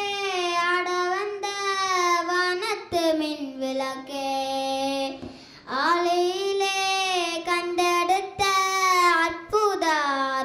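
A young boy singing unaccompanied into a handheld microphone, in long held notes that glide between pitches, with a short pause for breath about halfway through.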